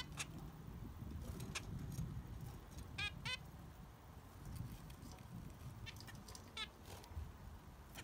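Zebra finches giving short nasal beeping calls, scattered singly with a quick pair about three seconds in, over a low background rumble.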